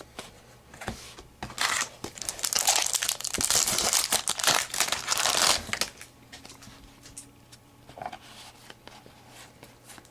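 Wrapper of a 2009 Upper Deck Heroes football card pack being torn open and crinkled: a loud burst of crinkling and tearing lasting about four seconds, with light clicks of cards being handled before and after.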